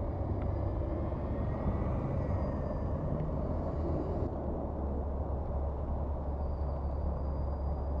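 Slow traffic on a snow-covered street: car engines and tyres running through packed snow, under a steady low rumble.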